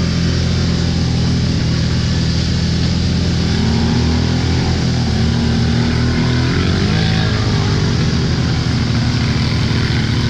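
Can-Am ATV engine running steadily under load, its note rising and dipping a little about halfway through.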